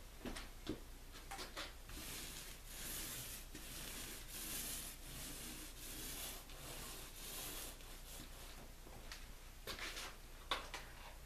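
Paint roller rolling primer onto a canvas canoe hull, a soft swishing rub repeated stroke after stroke about once a second. There are a few light clicks and knocks near the start and again near the end.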